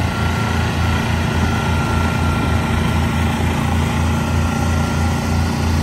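JPC HT15 mini excavator running steadily as it tracks along, with a low pulsing beat from the engine and a steady high whine over it.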